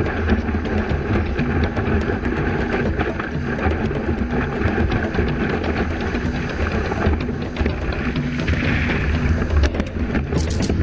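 Turbulent water of a tidal bore rushing and churning around a surfboard-mounted camera, with a heavy low rumble. Near the end a wave breaks over the camera with a splash.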